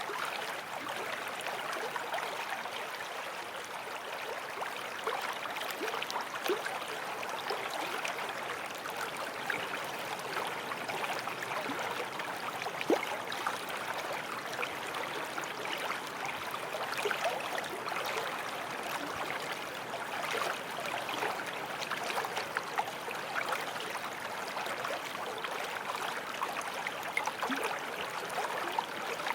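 Forest stream flowing and babbling over stones, a steady rush of water with small splashes and gurgles throughout.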